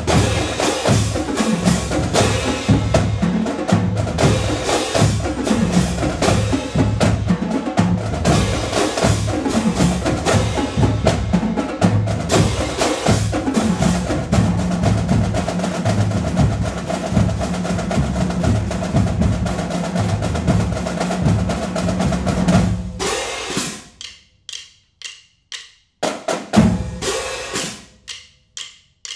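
A marching drumline plays a fast cadence on Yamaha marching snare drums, tenor drums and bass drums, with crash cymbals. About 23 seconds in, the dense drumming stops and only a few separate, sharp hits follow, with silence between them.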